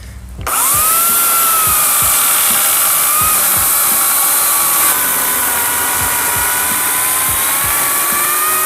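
Electric power tool running steadily: a motor whine over a strong hiss. It starts about half a second in and shifts lower in pitch about halfway through.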